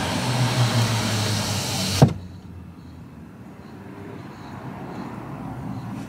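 A car engine running close by with street noise, then a sharp thump about two seconds in as a car door is shut, after which the outside noise is cut off and it goes much quieter.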